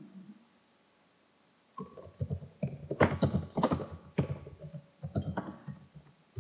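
Computer keyboard typing: irregular key clicks that start about two seconds in, after a quiet start.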